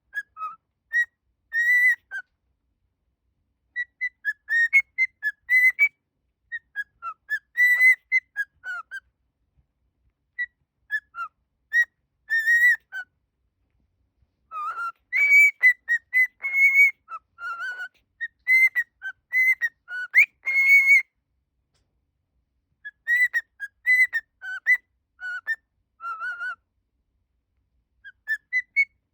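Cockatiel whistling a melody: short phrases of quick, clear notes that glide up and down, with pauses of a second or two between phrases.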